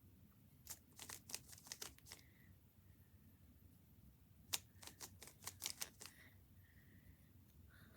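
Plastic Rubik's cube being turned by hand: quick runs of faint clicking and clacking as the layers snap round, one run about a second in and another from about four and a half seconds in.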